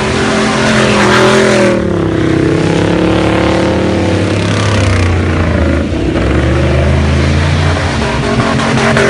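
Range Rover P38's 4.6-litre V8 revving as it drives through mud, over the rush of the tyres churning the ground. The engine's pitch falls about two seconds in, then dips and climbs again around six seconds.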